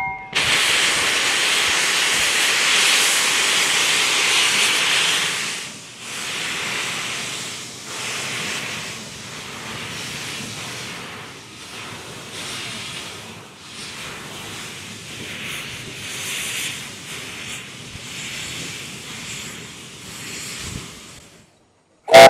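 Steam hissing from the W.G. Bagnall narrow-gauge saddle-tank locomotive 'Isibutu', venting steam from around its cylinders. A loud, steady hiss lasts about five seconds, then drops to a softer hiss that swells and fades every second or two.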